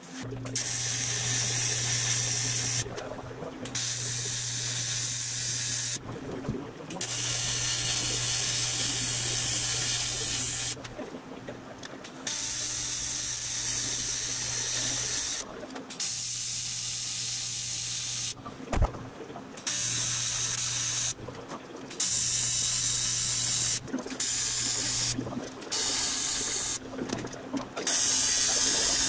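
TIG welding arc on aluminum angle: a steady buzz with hiss that starts and stops about nine times, in welds of one to four seconds with short gaps between. One sharp knock comes about two-thirds of the way through.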